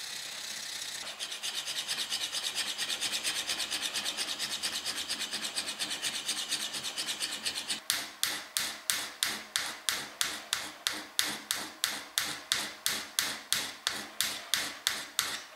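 A small steel chisel being honed by hand on a flat beach stone, which the maker takes for sandstone: steel scraping back and forth on the gritty stone. The strokes are quick and even at first, then from about eight seconds in come as separate, louder strokes, about three or four a second.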